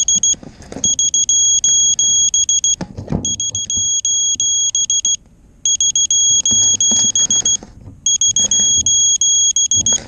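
Electronic beeper sounding a high-pitched alarm of rapid pulses, in bursts of about two seconds with short pauses between, over some rustling and a knock about three seconds in.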